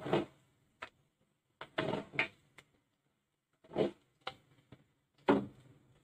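Metal spoon clinking and scraping against a stainless-steel wire-mesh strainer and the steel pan it sits in, about eight short, irregularly spaced knocks with a brief ring after each. No steady frying sizzle is heard between them.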